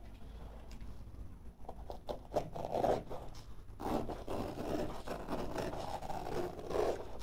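Straight-bladed utility knife cutting carpet along the skirting board: several scraping, ripping strokes, with a few sharp clicks about two seconds in.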